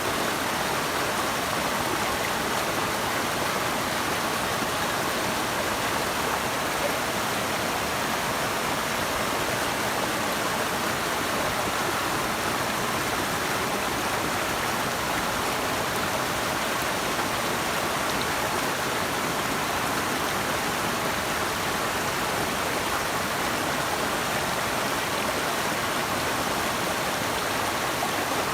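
Running water rushing steadily and evenly, with no other sound standing out.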